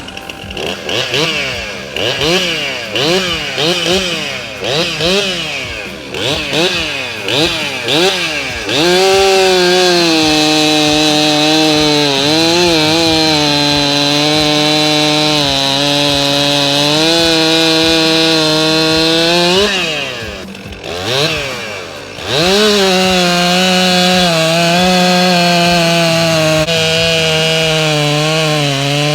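Stihl 064 two-stroke chainsaw being revved. For the first nine seconds it runs in quick blips about once a second. Then it is held at high revs with small dips in pitch, drops briefly about twenty seconds in, and climbs back to high revs to the end.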